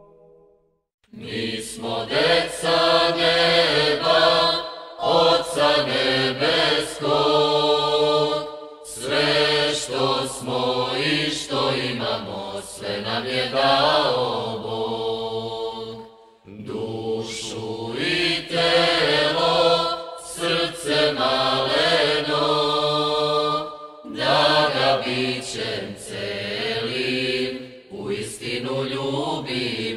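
Voices singing Orthodox church chant, in long sung phrases separated by brief breaks.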